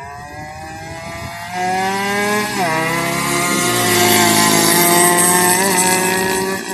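Two racing motorcycles, an RXT 135 two-stroke and an RS125Fi, at full throttle. The engine note climbs in pitch as they approach, then drops sharply as each one passes close by, about two and a half and three and a half seconds in.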